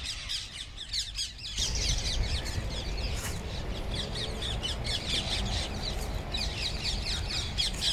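A large flock of rose-ringed parakeets calling, many short high-pitched squawks overlapping without a break. A low rumble comes in underneath about a second and a half in.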